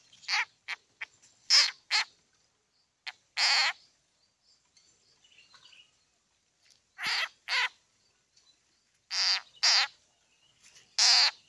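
Frog giving harsh distress cries as it is seized by a snake: a string of short, loud calls, several in pairs, the longest about half a second, with quiet gaps between.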